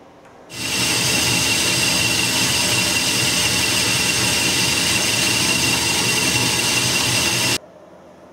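Metalworking lathe running at a steady speed with the chucked back plate spinning: a steady high whine over even mechanical running noise, starting abruptly about half a second in and cutting off abruptly near the end.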